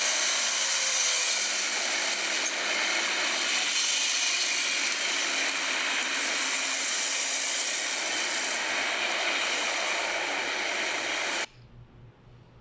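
Steady rushing ambience from the "Ambient Street 1" sound-effect clip playing back in the KineMaster editor preview. It cuts off suddenly near the end, where the audio clip ends on the timeline.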